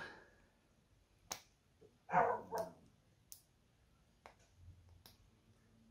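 A dog barks briefly about two seconds in, the loudest sound here, over a few small sharp clicks of tiny steel advance springs and metal distributor parts being handled and clipped on.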